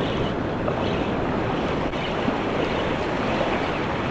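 Steady wind noise on the microphone mixed with small surf waves washing up over the sand.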